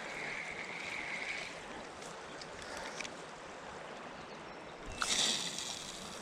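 Flowing river water, a steady rushing, with a brief louder rush of noise about five seconds in.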